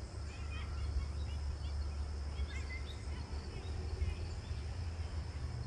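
Birds chirping in short, scattered notes over a steady high insect drone, with a constant low rumble underneath.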